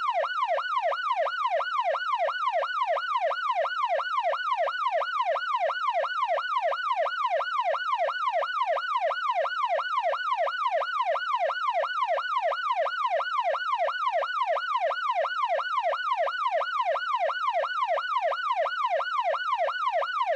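Electronic police siren in its fast yelp pattern: a rapid rising-and-falling wail repeating evenly, about two and a half times a second.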